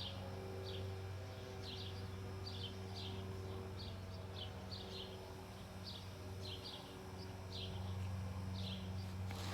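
A tornado siren's tone dying away as its test winds down, under repeated short high bird chirps about twice a second and a steady low hum. A sharp click near the end.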